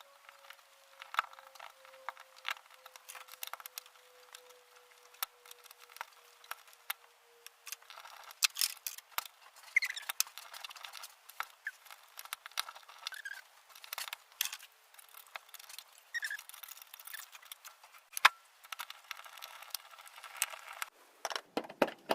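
Irregular small clicks and taps with a few brief squeaks, busier from about a third of the way in, with a sharp knock a few seconds before the end.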